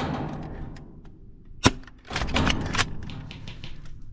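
Airsoft gunfire: a single sharp crack about one and a half seconds in, then a quick cluster of clicks and cracks, with fainter ticks around them.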